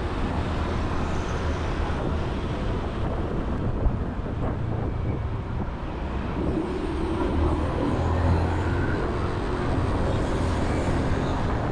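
Motorcycle engine running steadily while riding, with road and wind noise on the camera microphone. It grows a little louder about seven seconds in.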